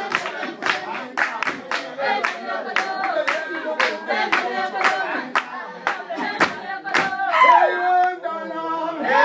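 Zulu group singing of a traditional dance song, with sharp rhythmic claps or stamps about three a second that stop about seven seconds in, leaving the voices holding longer notes.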